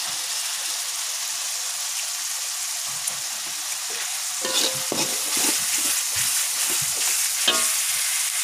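Ground chili, shallot and garlic balado paste sizzling in oil in a wok while a metal spatula scrapes and stirs it, the scraping strokes coming mostly in the second half. The paste is being fried down until it dries.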